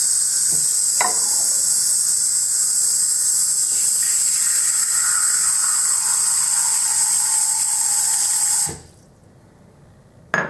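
Bathroom faucet running steadily into a ceramic shaving bowl, filling it with water. The tap is shut off abruptly about nine seconds in, and a single short knock follows near the end.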